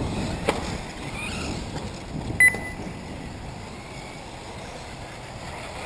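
Electric 1/8-scale RC off-road buggies running on the track, with faint whines rising and falling and a sharp knock about half a second in. A single short, high electronic beep about two and a half seconds in is the loudest sound.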